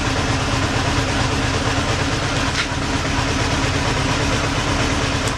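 1990 Honda CBR1000F's inline four-cylinder engine, freshly rebuilt, running steadily with no revving, cutting off suddenly at the very end.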